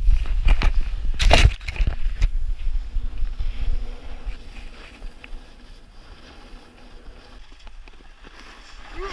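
Sliding downhill on thin, freshly made artificial snow: scraping and crunching under skis or board, with wind buffeting the action camera's microphone and a few sharp knocks in the first couple of seconds. Louder over the first few seconds, then a quieter steady hiss.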